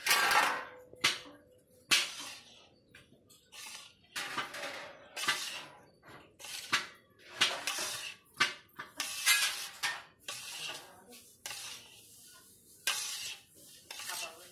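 Metal spatula scraping against a large metal kadai while stirring besan and powdered sugar together, in irregular strokes about once a second.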